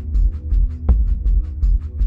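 Background music with a steady beat: a fast, even ticking rhythm over a pulsing bass.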